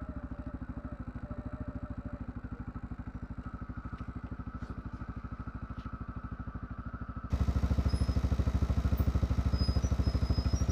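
Single-cylinder ATV engine idling with an even, rapid putter, joined by a faint clatter. About seven seconds in it suddenly becomes much louder.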